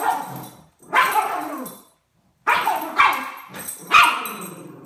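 Miniature schnauzer barking with a toy held in its mouth: four drawn-out barks, each about a second long and falling in pitch.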